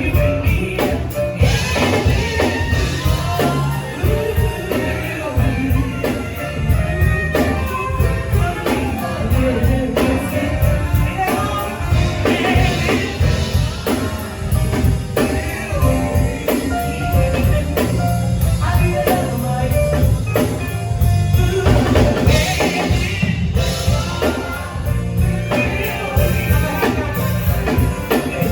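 Live band music with a singer, a steady beat carried by drums and bass.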